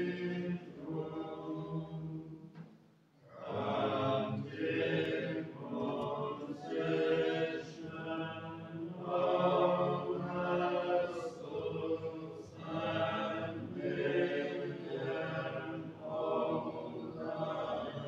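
Voices singing a slow chant in long held phrases, with a short break about three seconds in.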